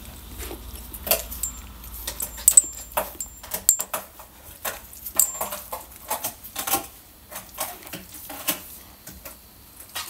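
A dog carrying its food bowl in its mouth, the bowl knocking and clattering in irregular clicks, with the jingle of the metal tags on its collar.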